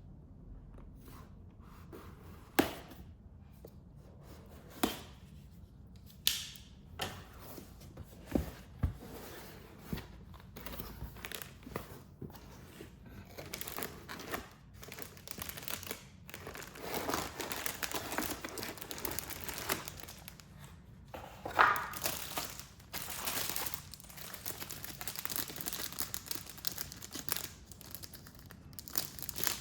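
Unboxing a keyboard: the cardboard box knocks and thuds a few times as it is opened and handled, then plastic and paper packaging rustles, crinkles and tears for a long stretch.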